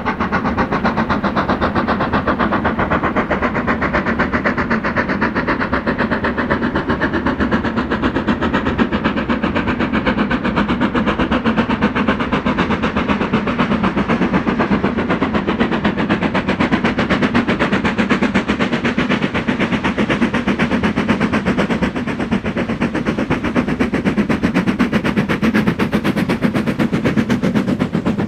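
Steam locomotive working hard up a 1 in 49 gradient at the head of a train, its exhaust beats coming rapidly and evenly, with no let-up.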